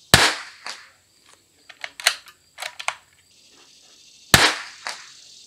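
Two shots from a Christensen Arms Ranger 22 bolt-action .22 LR rifle, about four seconds apart. Between them come several small metallic clicks of the bolt being worked to eject and chamber a round.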